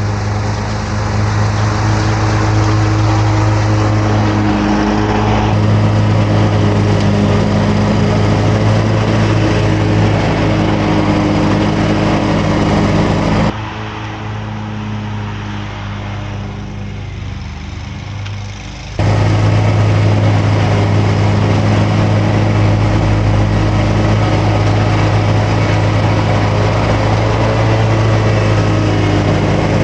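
Wright commercial stand-on lawn mower's engine running at a steady speed, a steady low hum. About halfway through it drops to a quieter stretch for about five seconds, then comes back at full level.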